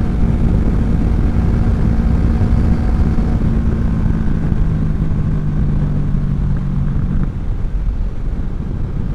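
Kawasaki Vulcan 650 S's parallel-twin engine running through a CS Racing aftermarket exhaust while riding at steady revs, with wind noise. About seven seconds in, the engine note fades and drops.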